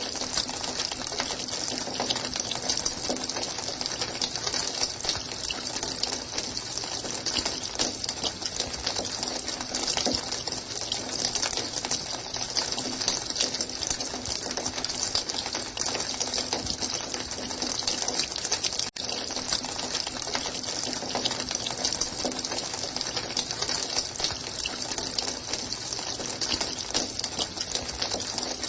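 Running water: a steady, dense splashing rush that cuts out for an instant about two-thirds of the way through.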